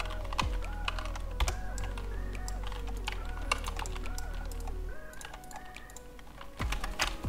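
Computer keyboard keys and mouse buttons clicking irregularly, over quiet background music with a stepping melody.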